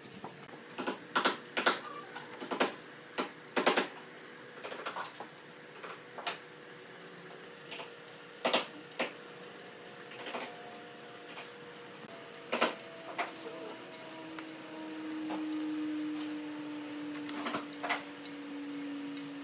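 Hardwood blocks being set down and knocked against one another on a wooden tabletop: irregular sharp taps and clacks, sometimes in quick pairs. A steady faint hum runs underneath, and a low drone swells up about two-thirds of the way in, sinking slightly in pitch.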